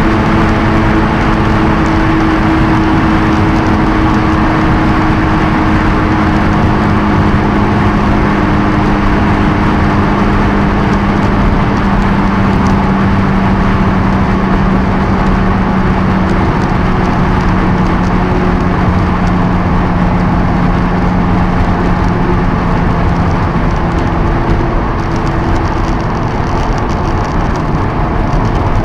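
Honda S2000's four-cylinder engine cruising at high speed, heard inside the cabin under heavy wind and road noise; its note slowly falls in pitch as the car slows, with a small drop about halfway through.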